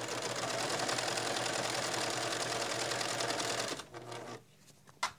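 Domestic sewing machine stitching a binding strip onto the edge of a quilt, running at a steady fast rate of stitches and stopping about four seconds in. A single sharp click follows near the end.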